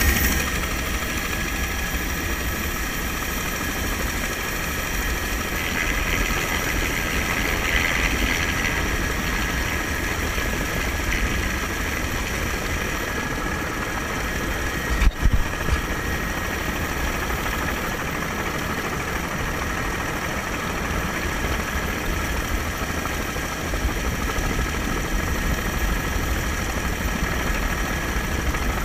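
Helicopter turbine and rotor noise picked up by a camera on the airframe: a steady high whine over a heavy low rumble and wind on the microphone, with one brief thump about halfway through.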